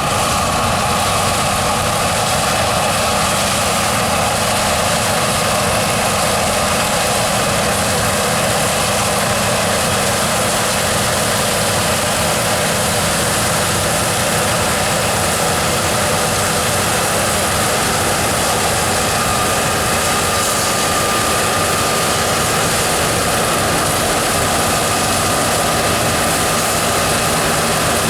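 John Deere 9670 STS combine harvester running steadily under load while harvesting wheat: a constant engine drone with a steady whine from the threshing machinery over it.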